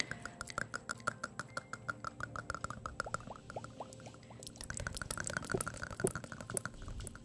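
ASMR mouth sounds close to a microphone: quick wet tongue and lip clicks, about six a second, with a few small upward-pitched pops in the middle and a denser run of clicks near the end.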